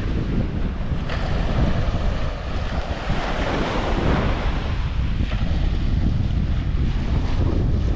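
Wind buffeting the microphone with a steady low rumble, over surf washing onto a sandy beach in slow swells.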